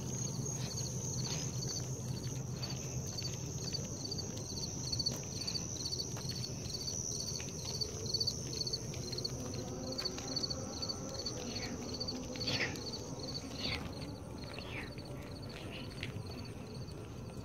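Night insects chirping: an even pulsing about three times a second over a continuous high trill, with a low rumble underneath that fades partway through.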